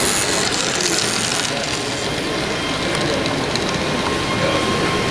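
Hubbub of a busy exhibition hall, with voices murmuring in the background. A 00-gauge model tram runs past close by, its small motor adding a high whirr over the first second or so.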